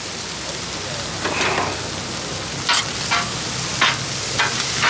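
Corn and bacon sizzling on a hot Blackstone griddle while a metal spatula stirs and scrapes across the steel griddle top, with about five short scrapes over the steady sizzle.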